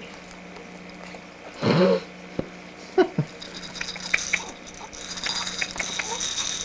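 A six-week-old baby's short fussy vocal sounds: a whimper about two seconds in and a shorter one about a second later, with soft small clicks in between.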